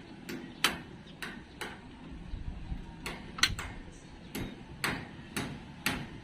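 Light, sharp taps of a tool on metal, about ten at irregular intervals of roughly half a second, during work on a brake caliper.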